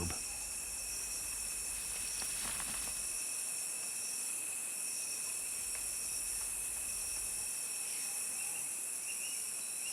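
Steady background hiss with a continuous high-pitched insect drone.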